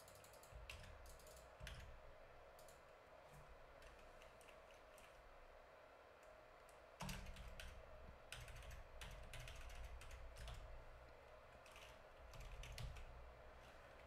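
Faint computer keyboard typing and clicking in scattered runs of keystrokes, busier in the second half, with a soft low thump about halfway through.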